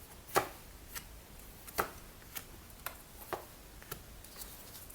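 Tarot cards being shuffled and handled on a table, making about six sharp, unevenly spaced taps and snaps.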